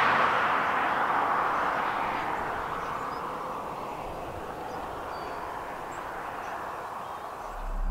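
A Lexus LS430 V8 sedan driving away down the road, its tyre and engine noise fading steadily into the distance. A low rumble starts just before the end.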